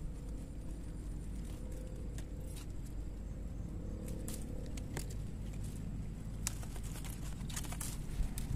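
Stems and dry leaves of tall waterside plants rustling and crackling as a hand pushes through them, with scattered light ticks over a steady low rumble of wind or handling on the phone's microphone.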